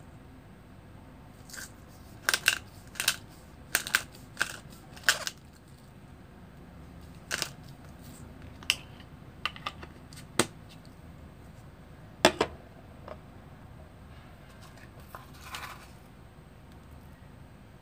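Sharp clicks and taps from a glass spice jar and its plastic lid being handled over a bowl as seasoning goes in. They come singly and in quick pairs, with pauses between, and stop after about thirteen seconds.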